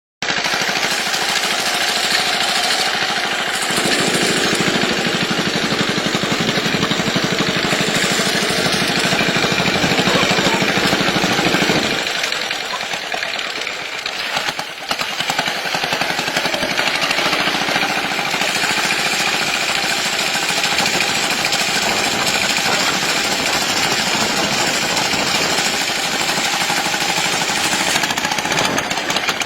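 Engine of a ploughing machine running steadily with a fast, even pulsing beat; the sound shifts in character around four and twelve seconds in.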